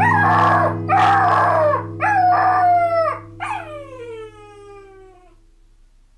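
A dog's yelps and howls, about five calls that each slide down in pitch, the last one long and trailing off, over a held note of background music that fades out with it.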